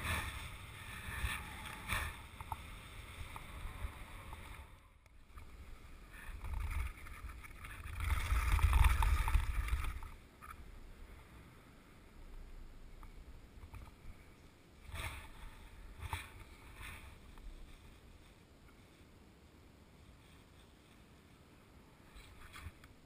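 Wind buffeting the microphone in gusts, with the hiss of skis sliding over snowy ice, while kite skiing. Loudest about eight to ten seconds in, then quieter.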